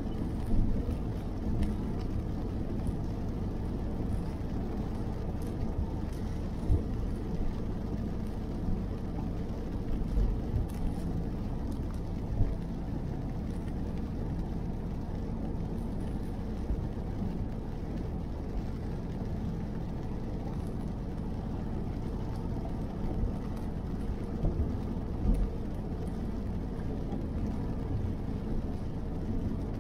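Car cabin noise while driving on a wet highway in the rain: a steady low rumble of road and tyres, with faint taps of rain on the windshield and a few brief low thumps.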